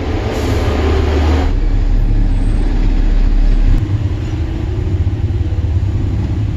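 A steady, loud, low engine-like rumble, with a burst of hiss over it in the first second and a half.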